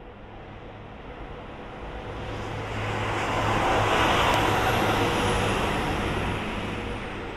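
JR East KiYa E195 diesel rail-carrier train passing close by: engine hum and wheel-and-rail noise swell to their loudest about four seconds in, then fade as it moves away.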